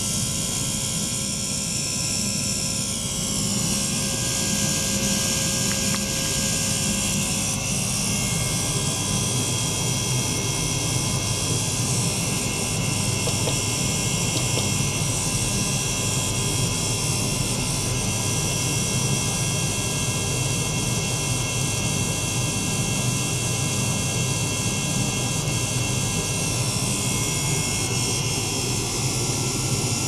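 Small DC-motor circulation pump running steadily, a continuous mechanical drone with low hum and several high-pitched whining tones; a few seconds in, some of the high tones slide in pitch and then hold steady.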